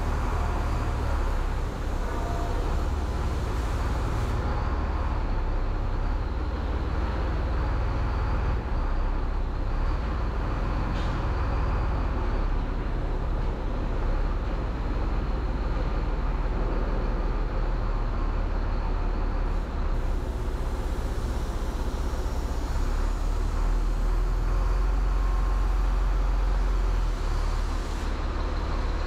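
Chenglong 375 truck's diesel engine running steadily at low revs, heard from inside the cab as the truck is slowly reversed and manoeuvred.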